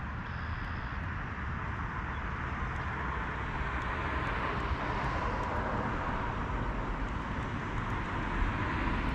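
Steady outdoor background rumble and hiss, slowly growing louder, like distant engine noise.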